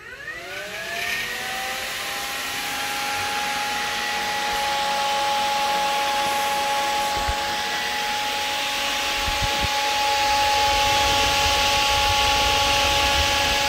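Derale Electra-Cool remote cooler's electric fan switching on and spinning up over about a second and a half, its whine rising in pitch and then holding steady over a rush of air. Low buffeting from the airflow comes in during the second half.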